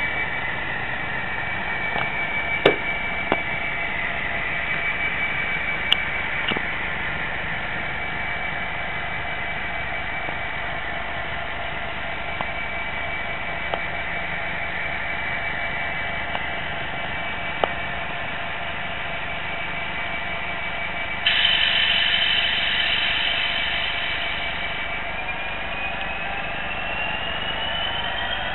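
OO gauge model train running along the track, with a steady whine made of several held tones and a few light clicks. About 21 seconds in there is a brief, harsher and louder stretch, and near the end the whine rises in pitch.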